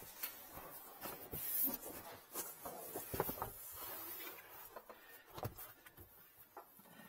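Carpeted cargo-floor liner being fitted back into a car's trunk: rustling and scraping of the fabric panel, with scattered light knocks, the sharpest about three seconds in.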